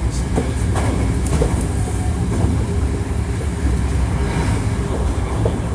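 Hankyu 1300 series electric train running at speed, heard from inside the car: a steady low rumble of wheels on rail, with scattered clicks over rail joints and a faint steady tone.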